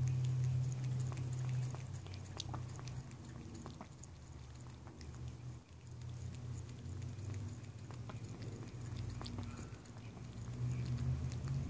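Black-and-white cat lapping cat milk from a small bowl: faint wet clicks of the tongue, over a steady low rumble.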